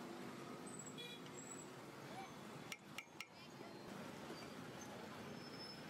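A metal spatula and skimmer clinking against a large aluminium bowl of fried onions, three quick clinks about three seconds in, over steady street noise and faint voices.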